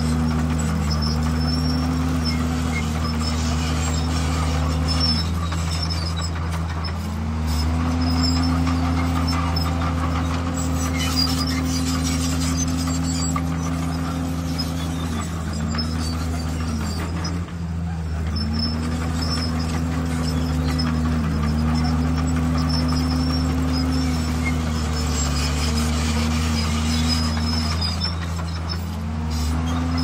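Crawler bulldozer's diesel engine running hard, its pitch sagging and recovering about eight times as it takes load and eases off. Faint high squeaks run through it.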